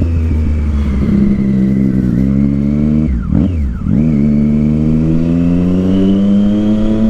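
Triumph Street Triple 675's inline-three engine through a Yoshimura aftermarket exhaust, pulling under acceleration with its pitch climbing steadily. There is a short step about two seconds in, then the pitch drops sharply and recovers around three and a half seconds in before climbing again.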